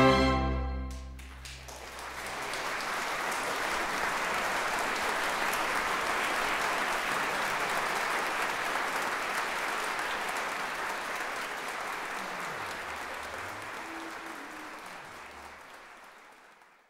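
A symphony orchestra's final brass-heavy chord cuts off about a second in, and the audience breaks into steady applause, which fades out near the end.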